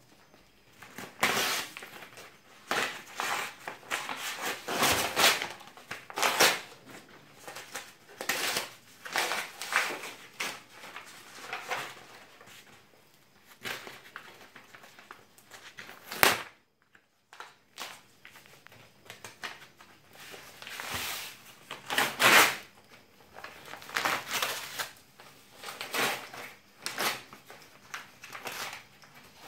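Brown kraft-paper wrapping being torn and crumpled by hand off a rolled carpet, in irregular rustling, ripping bursts, with a short break a little past halfway.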